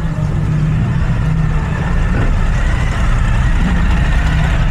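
A motor vehicle's engine running close by: a steady low rumble that grows slightly louder over the first few seconds.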